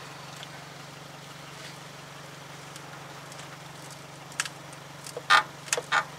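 Steady low hum, then, in the last two seconds, several short sharp clicks from a breaker bar and socket straining against a seized front axle nut that does not break loose.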